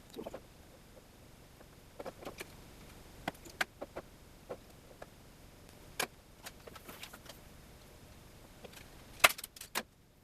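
Small clicks, clinks and knocks from vacuum fittings and tubing being handled and fitted together by hand, irregular and spaced out, with a louder cluster of sharp clicks near the end.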